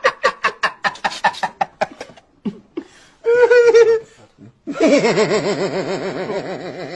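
A person laughing hard. First comes a fast run of short staccato 'ha-ha' bursts for about two seconds. After a short break there is a brief high wavering squeal of laughter, then a longer trembling, warbling laugh that slowly fades.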